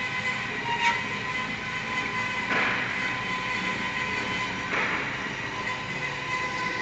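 Metal-cutting band saw with a bi-metal blade sawing 4-inch steel bar: a steady machine whine with high ringing tones and a brief swell of hiss about every two seconds.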